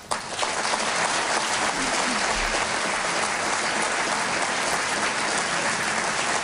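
A large crowd applauding steadily; the clapping cuts in suddenly at the start.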